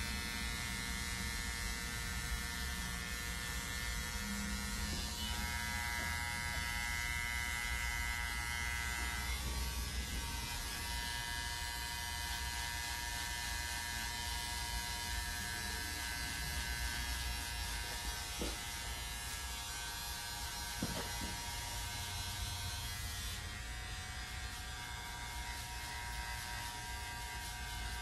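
Cordless electric hair clippers buzzing steadily while cutting a fade on the side of a man's head, with a couple of faint clicks about two-thirds of the way through.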